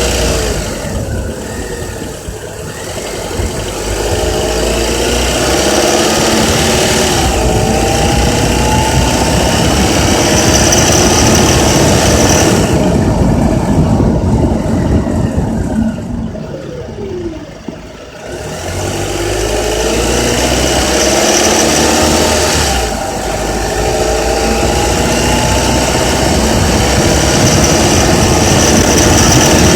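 Honda Accord's K24Z3 2.4-litre four-cylinder engine running loud, its pitch climbing slowly, dropping back, and climbing again several times, through the 2200–3000 rpm range where it makes a rattling noise.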